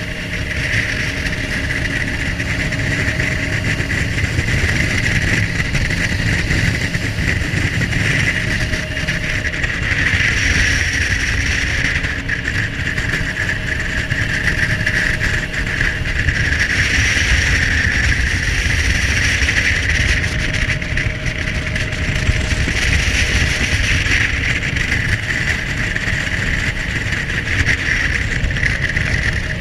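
Jet boat running at speed on a river: a loud, steady engine and water-jet noise with a constant high whine that swells a little every few seconds.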